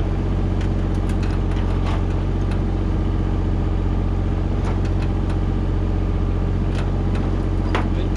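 Excavator engine running steadily, with a few short sharp knocks scattered through it.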